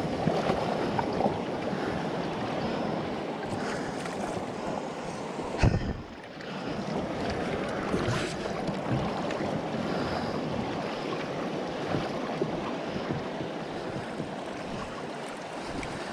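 Steady rush of river water flowing over a shallow riffle around a kayak, with wind on the microphone. One sharp knock about a third of the way in.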